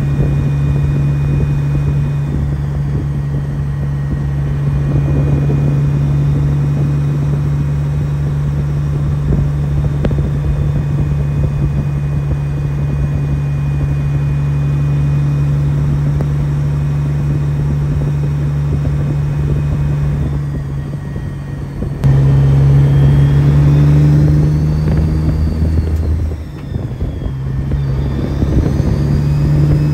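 Semi-truck diesel engine heard from inside the cab, running steadily as the truck drives. About two-thirds of the way through it suddenly gets louder as the truck pulls harder, drops away briefly a few seconds later, then builds again.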